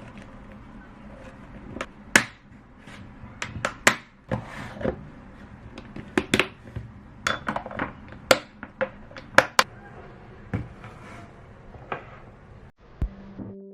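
Kitchenware clinking and knocking: irregular sharp taps of dishes, pots and utensils being handled, over a steady background noise.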